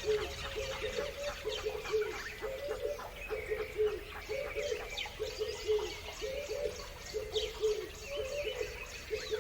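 Several birds calling at once: many short, low calls repeating rapidly in clusters, with higher chirps and twittering over them.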